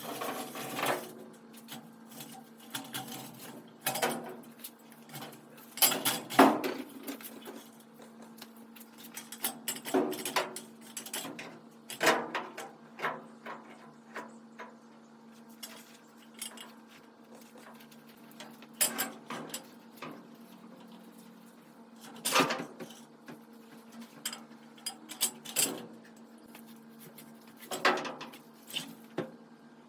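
Irregular metallic clanks, clinks and knocks of tools and metal parts being handled, with several louder bangs spread through, over a steady low hum.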